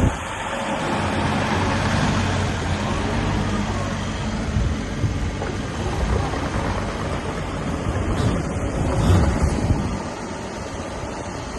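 Wacker Neuson EZ50 compact excavator's diesel engine running, a steady low hum under a wide hiss, with a few knocks about nine seconds in; it gets somewhat quieter about ten seconds in.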